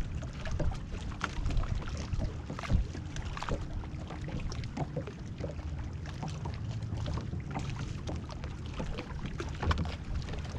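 Small waves lapping and slapping against a boat's hull in short irregular splashes, over a low wind rumble.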